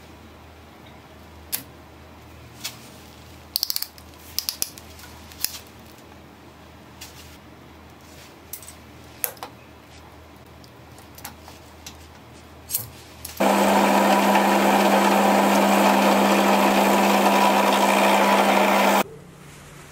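Scattered small clicks and taps as a clamp and sandpaper are handled on a snakewood blank. About 13 seconds in, a drill press starts up loud and steady, boring a hole into the top of the blank, and it cuts off suddenly near the end.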